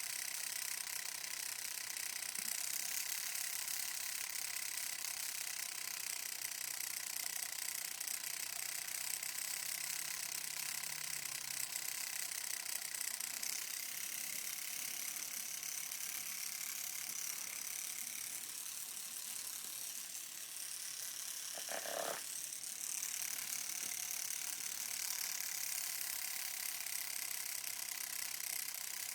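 Homemade tattoo machine, its small motor driving a guitar-string needle, running steadily while tattooing skin.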